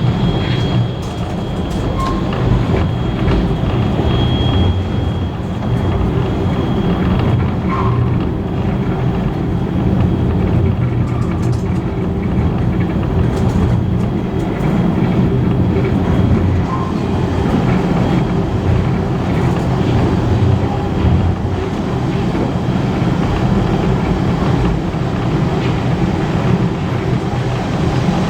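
Heritage passenger carriage running on rails: a steady rumble of wheels on track with light clicks, and a faint thin high whine through the first half.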